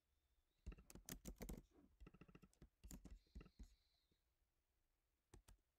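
Faint typing on a computer keyboard, the keystrokes coming in three short runs.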